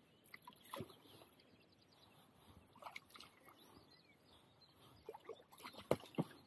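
Faint, scattered clicks and small knocks around a small fishing boat on the water, with a sharper knock about six seconds in.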